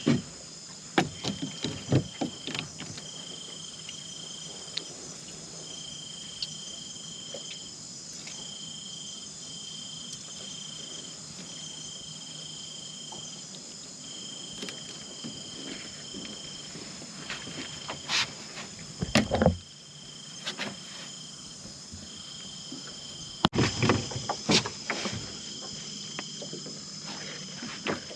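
Night insects: a cricket trilling in stop-start bursts at one steady high pitch over a steady higher insect drone, with scattered knocks and thumps.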